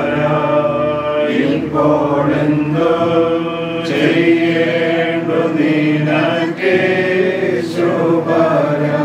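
A group of voices chanting a Christian liturgical hymn together in long sung lines without pause.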